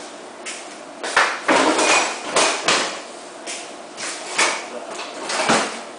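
A run of irregular knocks and clatters, like kitchen things being picked up and set down. The loudest come just after a second in.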